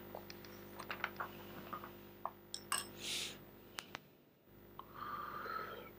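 Faint scattered clicks and light taps over a low steady hum, with a brief hiss about three seconds in and a soft rustle near the end.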